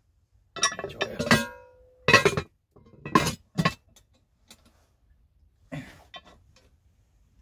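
Metal clanks of a spoon and lid against a small black cooking pot, then the pot's wire bail handle clinking as it is lifted. A few sharp clanks come in the first four seconds, one leaving a brief ring, with lighter clinks near the end.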